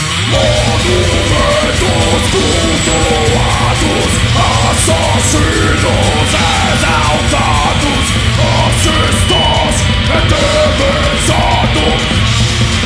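Live heavy metal band playing at full volume, with bass, guitar and drums. A vocalist shouts the lyrics over it from about half a second in.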